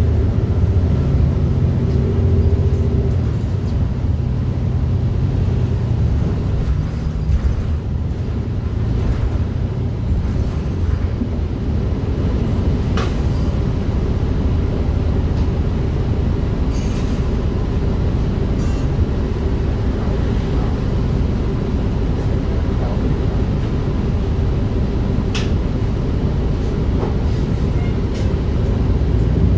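City bus riding along, heard from inside the cabin: a steady low rumble of engine and road noise with a few brief rattles and clicks.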